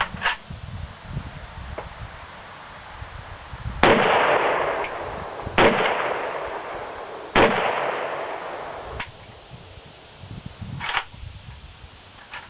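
Three single shots from a WASR-10/63 AK-pattern rifle in 7.62x39, fired with steel-case hollow-point ammunition about two seconds apart, each report followed by a long echo. A couple of fainter sharp cracks come near the end.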